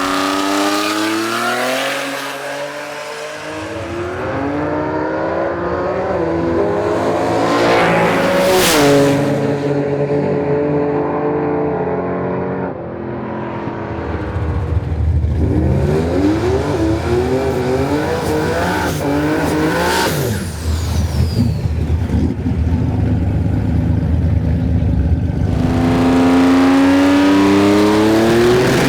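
Twin-turbocharged 3.8-litre GM Ecotec V6 drag car revving hard and accelerating, its pitch climbing in several long pulls, with two sharp cracks along the way.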